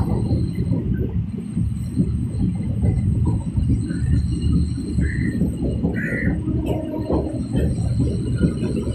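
Electric local train running along the track: a steady low rumble of wheels and carriage with constant irregular rattling and clatter.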